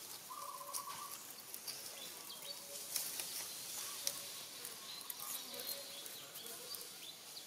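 Forest ambience: dry leaf litter crackling and rustling under the moving macaques, with a short buzzy bird call near the start and a few faint calls later.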